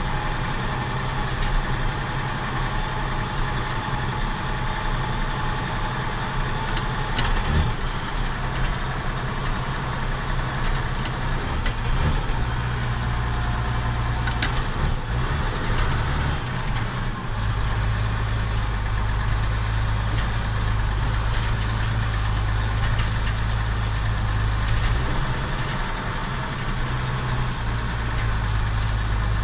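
Case IH Magnum 7140 tractor's diesel engine running steadily. Its low note changes pitch about twelve seconds in and again a few seconds later, and a few short clicks come through the middle.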